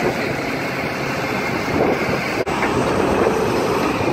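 Caterpillar 320L hydraulic excavator's diesel engine running steadily, with a brief dropout about two and a half seconds in.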